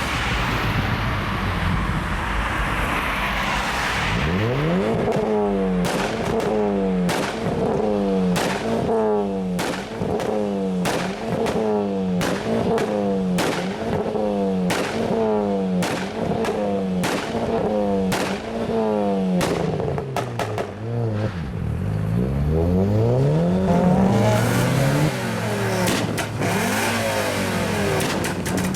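A tuned car engine revved in rapid repeated blips, the revs climbing and dropping about every 0.7 s, with a sharp exhaust pop at each blip. Near the end come slower, longer revs with more pops and crackles.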